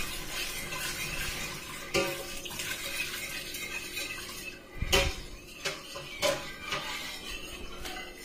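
A utensil stirring liquid in a metal stockpot, knocking and clinking against the pot's side several times, loudest about five seconds in.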